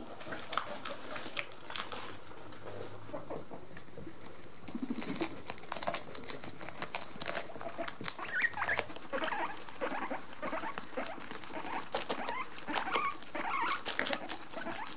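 Several guinea pigs crunching and chewing a lettuce leaf close up: a fast, irregular patter of crisp bites and tearing.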